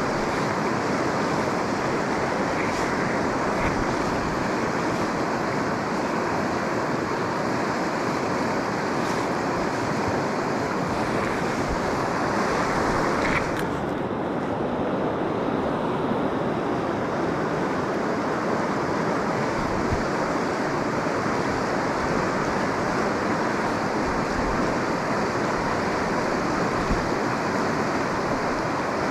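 Steady rushing of the River Dee's flowing water. About halfway through, the higher hiss drops away.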